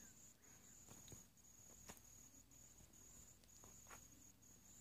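Near silence: faint room tone with a thin, steady high-pitched whine and a few faint clicks.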